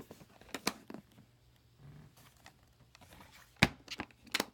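Collector model tractors being handled and set in place: a few sharp clicks and knocks of hard pieces, the loudest a little past three and a half seconds in.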